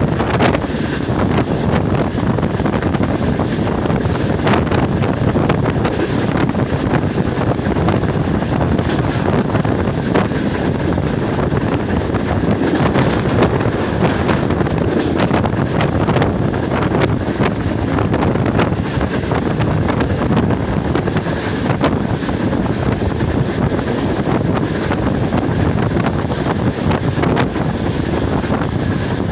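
Wind buffeting the microphone held outside a moving passenger train, over the steady running noise of the coach on the track.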